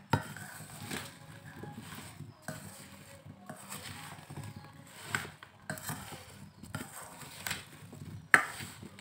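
A plastic spoon stirring dried jujubes and spice powder in a stainless steel bowl. The fruits rattle and scrape against each other, with irregular clicks as the spoon knocks the bowl, the sharpest near the end.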